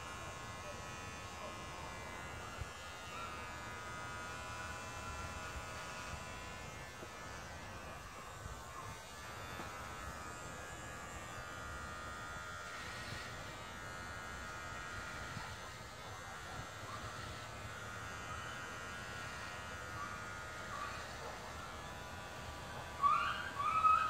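Electric hair clippers running steadily with an even buzz as they shave a head close to the scalp. Near the end, a brief louder sound that rises and falls in pitch cuts in over the buzz.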